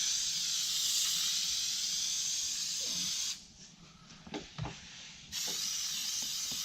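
Aerosol can of spray adhesive hissing as a heavy coat of glue is sprayed on. It stops about halfway through, with a few light knocks in the pause, and then a second spray starts a couple of seconds later.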